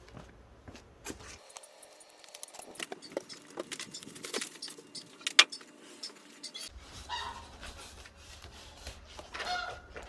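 Clicks, crinkles and rustling as the cardboard box and packaging of a kimchi refrigerator are torn open and handled, with one sharp snap about five seconds in.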